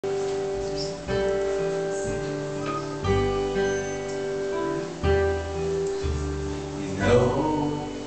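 Live acoustic string band playing: acoustic guitar and a second plucked string instrument over an upright double bass, with a new bass note about once a second.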